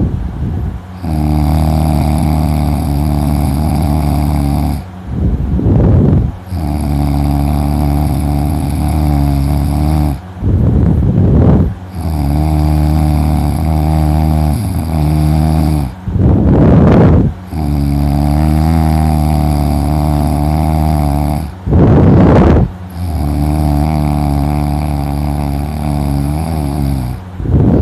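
A man snoring heavily in exhausted sleep: five long, loud, buzzing snores of a few seconds each, each followed by a short, rushing breath blown close to the microphone, repeating about every five and a half seconds.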